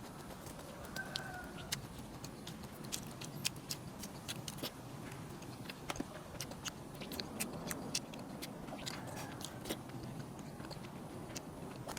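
A person eating: chewing with many small, sharp irregular clicks and crunches over a low steady background noise.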